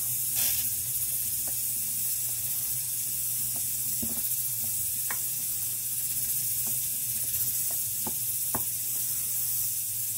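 A spoon scraping and knocking against a stainless steel bowl as stiff flour-and-cornmeal dumpling dough is mixed, giving a scattering of sharp clicks. A steady hiss and a low hum run underneath.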